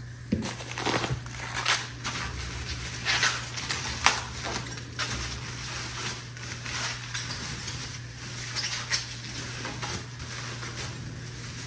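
Packaging being handled and unwrapped by hand, with irregular crinkling crackles and a few light clicks.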